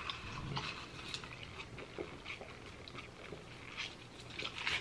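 Quiet sipping of iced Coke through a metal straw: soft mouth and drinking sounds with scattered faint small clicks.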